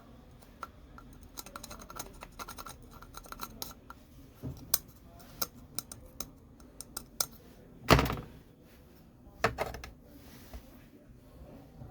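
Scattered clicks, scraping and light tapping of tools and small parts being handled on a bench, with one louder knock about eight seconds in and a lighter one shortly after.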